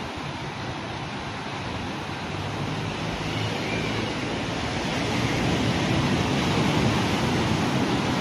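Steady noise of surf and wind on a beach, swelling a little about halfway through.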